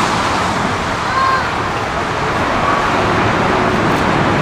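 Steady noise of heavy motorway traffic, with a few faint, brief rising and falling tones over it.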